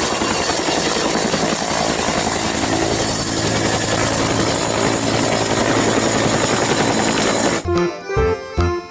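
A loud, steady mechanical whirring with a constant high-pitched whine and a fast fluttering pulse, cutting off abruptly near the end.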